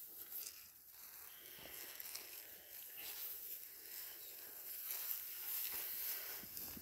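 Dorper–Katahdin sheep eating scattered grain among dry grass: faint nibbling with scattered small clicks, and rustling as their heads push through the stalks.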